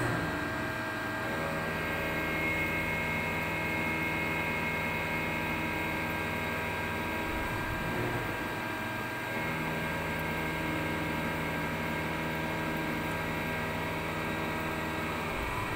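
Spinner TC77-SMCY CNC lathe running a program: a steady hum with the whine of its drives. The tones change about halfway through as the C axis indexes to a new angle, then settle into a steady run again as the tool feeds in.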